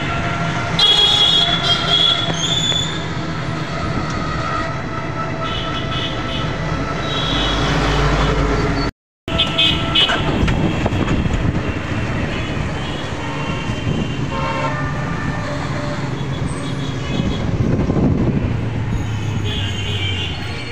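Busy street traffic heard from an open e-rickshaw riding through town: steady engine and road noise with several short vehicle horn toots. There is a brief cut to silence about nine seconds in.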